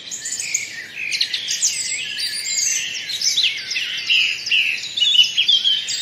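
Red-whiskered bulbul singing: a quick, continuous string of chirping, whistled notes, busiest from about a second in.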